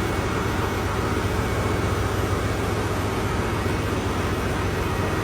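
Steady machinery noise with a constant low hum, the running background of a ship's engine room.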